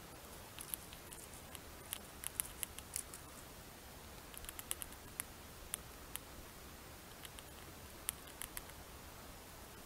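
Gray squirrel chewing and cracking food: quick, sharp crunchy clicks in irregular clusters.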